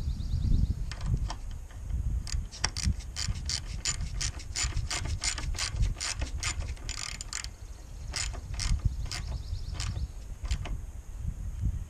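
Hand ratchet wrench clicking in quick, uneven runs, thinning out near the end.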